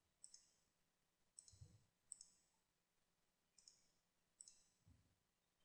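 Near silence with a handful of faint computer mouse clicks spread out, as objects are selected on screen.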